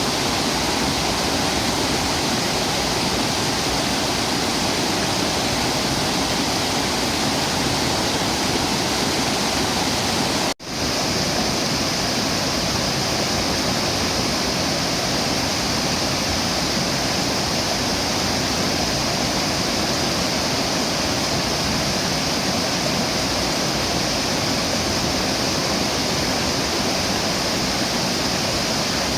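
Tat Ton Waterfall, a broad cascade of water over rock ledges, rushing steadily. About ten seconds in, the sound drops out for an instant and resumes with a brighter hiss, as from a spliced recording.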